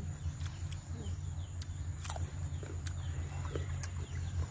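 Close-up eating sounds: mouths chewing roast pork, with scattered sharp clicks and smacks, the loudest about two seconds in, over a steady low hum.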